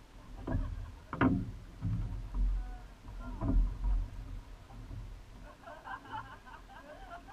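A few knocks and clunks from a rowing shell sitting at the bank, the strongest about a second in, over a low rumble. Faint voices in the background near the end.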